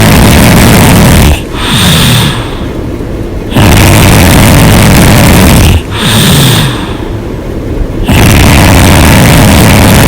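A person snoring loudly and hard with the mouth open: long snores of about two seconds, each followed by a shorter sound that falls in pitch, the cycle repeating about every four and a half seconds.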